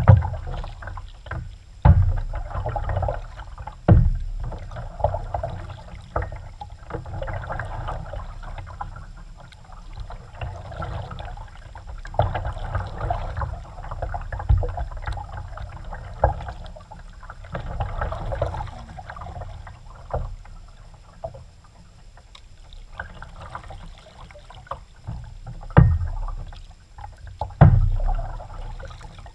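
Kayak paddling: water churning and splashing around the paddle and hull, with several sharp knocks, the loudest near the start and twice near the end.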